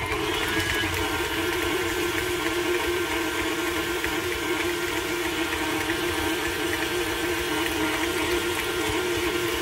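Electric stand mixer running steadily with its flat beater turning through a thick confectioners' sugar mixture in a stainless steel bowl: an even motor hum that grows slightly stronger right at the start.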